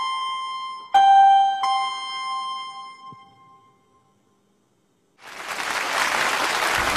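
Piano notes struck twice, about a second in, ringing out and fading away to near silence. Then audience applause breaks out about five seconds in and continues.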